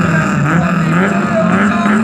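A car engine revving at the start line, its pitch wavering up and down as it is held on the throttle, then rising near the end as the car begins to pull away.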